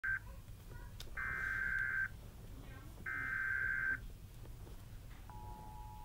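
Emergency Alert System SAME header: modem-like data bursts about a second long, the end of one and then two more with a gap of about a second between. The steady two-tone EAS attention signal starts about five seconds in.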